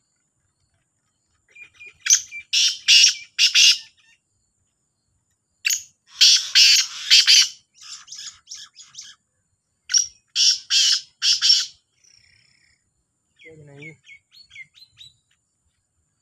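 Black francolins calling: three loud bouts of harsh, grating notes, each a quick run of about three notes a second, with a fainter, shorter run of chirps near the end.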